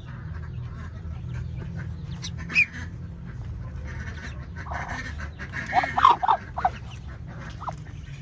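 Short duck calls from a mother duck and her newly hatched ducklings, a breathy hiss and then a quick cluster of calls about six seconds in, over a steady low hum; the mother is reacting to her ducklings being handled.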